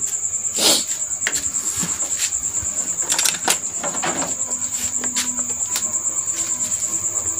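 A cricket chirping steadily in a fast, even, high-pitched pulse, with a few short clicks and rustles of handling over it.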